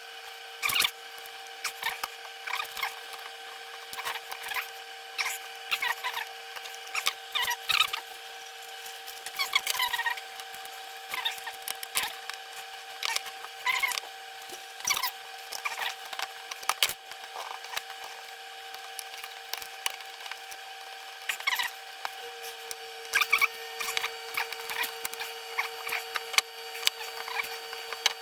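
Irregular clicks, scrapes and short squeaks of a small plastic air-pump casing being worked and pried open by hand, over a steady hum that shifts slightly about two-thirds of the way in.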